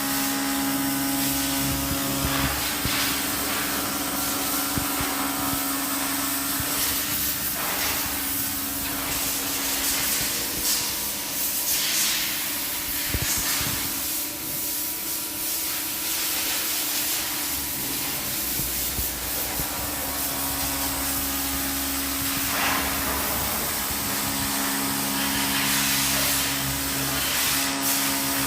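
CNC router spindle running with a steady whine while the cutter mills steel, over a rough hissing cutting noise that swells and eases.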